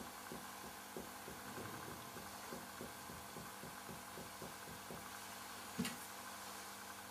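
Very quiet finger-on-finger chest percussion: a run of soft, dull taps about three a second, with one sharper click about six seconds in. It is the light percussion used over the second intercostal spaces to map the width of the heart's vascular bundle.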